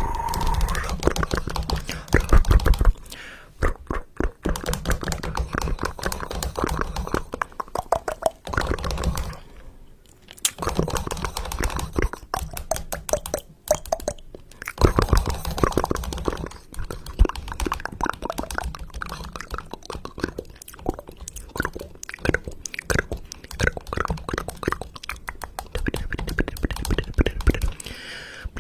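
Edited sound-effect audio chopped into a rapid, continuous stutter of short clicks and fragments, with brief dropouts about ten and fourteen seconds in.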